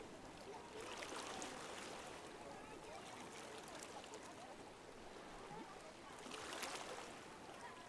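Beach ambience: a low wash of surf and air with faint, distant voices, swelling briefly about a second in and again near the end.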